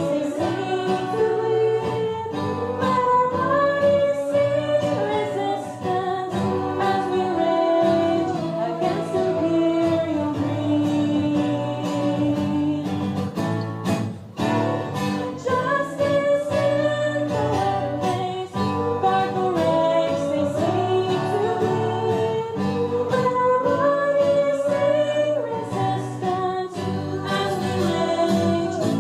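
A song with a group of voices singing a melody over guitar accompaniment.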